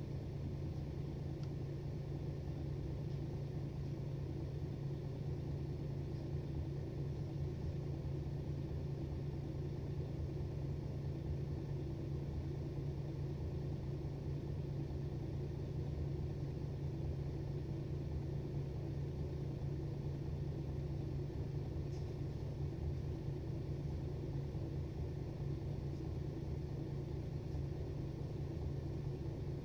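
Steady low drone of a 2006 Mercedes-Benz Citaro O530 city bus's diesel engine, heard from inside the passenger cabin, with no change in engine speed.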